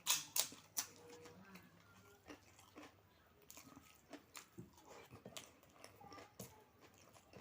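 Close-miked eating: a few sharp crunches in the first second, then softer, irregular chewing sounds.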